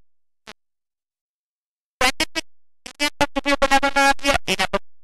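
Near silence, then about two seconds in, synthesizer-like music starts: short choppy notes with one note held for nearly a second.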